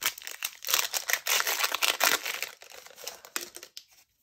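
Plastic wrapper of a Panini Elite basketball card pack being torn open and crinkled in the hands. It is followed by softer, sparser rustles and clicks as the cards are taken out and handled, dying away near the end.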